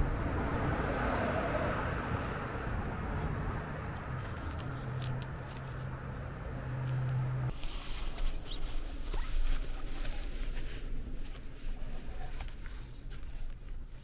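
Fabric window covers being fitted to a car: rustling over a steady low outdoor hum as a cover is stretched over the door frame, then, about halfway through, closer rustling and small clicks from inside the cabin as the shades are pressed into place.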